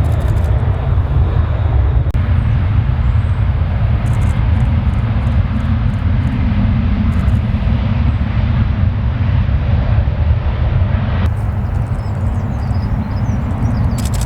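Jet airliner engines making a loud, steady rumble.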